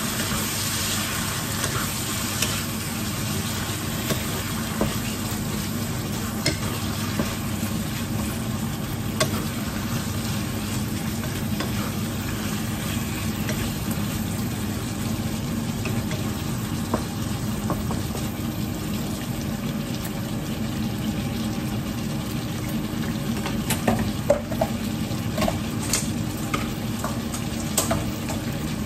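Wooden spatula stirring tofu puffs and black fungus in sauce in a nonstick pan over a steady sizzle, with scattered light scrapes and taps of the spatula against the pan and a few sharper taps near the end.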